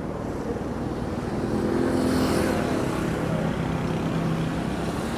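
A motor vehicle's engine passing close by, its steady hum growing louder to a peak about two seconds in.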